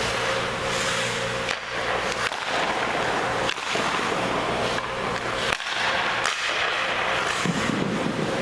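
Hockey practice on ice: skate blades scraping and carving over a steady rink hum, with several sharp cracks of pucks being shot and struck against the goalie's pads, stick and boards.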